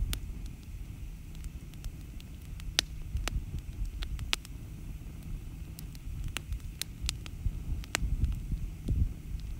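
Wood campfire burning, crackling with irregular sharp pops, several of them loud, over a low rumble.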